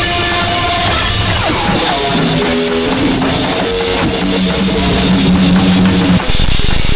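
Harsh noise music: a loud, dense wall of distorted noise laced with pitched tones. About a second and a half in, a group of tones glides down in pitch and settles into steady low drones. Near the end it briefly drops out and comes back as heavier, lower noise.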